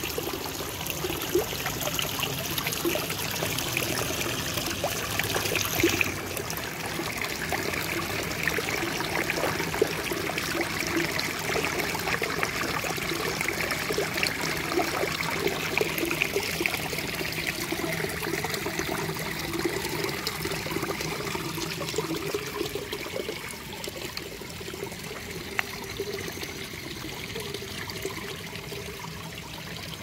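Small trickle of water falling over rocks into a shallow pool, a steady splashing dribble. It loses some of its hiss about six seconds in and softens a little more over the last several seconds.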